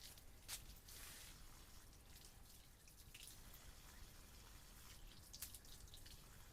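Near silence with a faint hiss and a few faint, sharp clicks: one about half a second in, one around three seconds in and one near the end.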